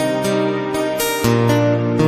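Music with strummed acoustic guitar chords changing every half second or so.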